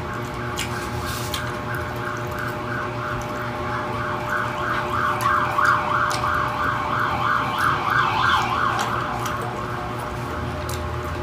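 An emergency-vehicle siren in a fast warble of about three cycles a second, growing louder through the middle and fading near the end. Scattered short clicks of eating by hand sound over it.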